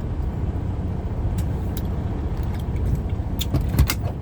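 Steady low rumble of a car's idling engine heard from inside the cabin, with a few short sharp clicks in the second half.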